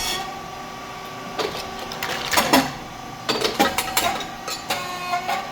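Rice cake popping machine running: a steady whine with several short bursts of clatter and hiss.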